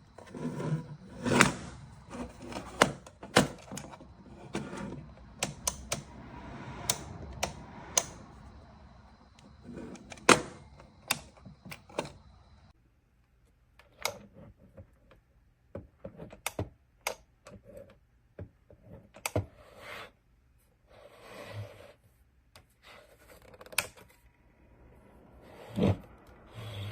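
Irregular sharp clicks and knocks from hard objects being handled. Under them a steady hum cuts off abruptly about halfway through.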